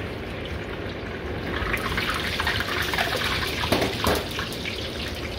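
Beaten egg deep-frying in hot oil in a wok, the oil sizzling and crackling. The sizzle grows stronger after about a second and a half, with a few sharper crackles near the middle.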